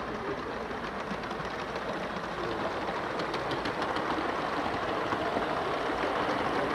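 Live-steam model BR K1 2-6-0 locomotive running with a train of wagons: a steady rhythmic mechanical running sound of the engine and wheels on the track, getting gradually louder as it approaches.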